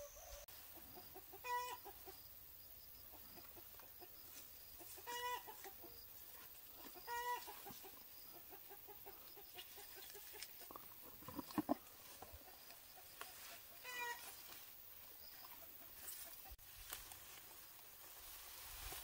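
A chicken clucking: four short calls spaced a few seconds apart. A quick cluster of sharp knocks about two-thirds of the way through is the loudest moment.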